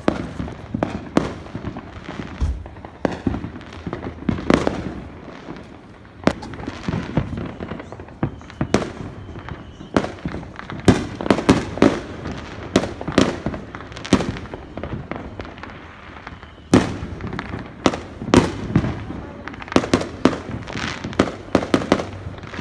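Fireworks going off: a run of sharp bangs and crackles with deeper booms, thickening into rapid strings of cracks about halfway through and again near the end.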